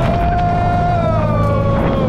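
Jet ski engine running steadily under way, with water rushing past, and a long high held tone over it that slides slowly lower in the second half.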